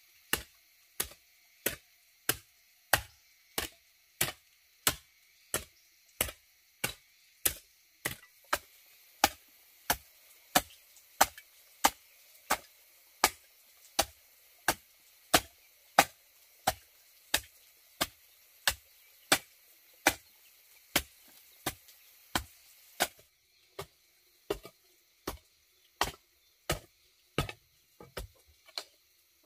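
Chopping: a blade striking wood in a steady rhythm, about three strikes every two seconds, with a short break about three-quarters of the way through before the strikes resume.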